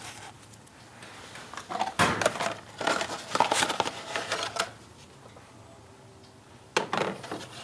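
Small clicks, taps and rustles of parts being handled by hand while the old O-ring on the oil filter housing cap is swapped for a new one, in bursts about two seconds in, around three to four and a half seconds, and again near the end.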